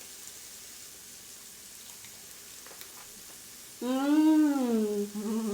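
Meat sizzling on a portable tabletop grill pan, a steady hiss with faint crackles. About four seconds in, a person makes a long hummed 'mmm' of enjoyment that rises and then falls in pitch, louder than the sizzle.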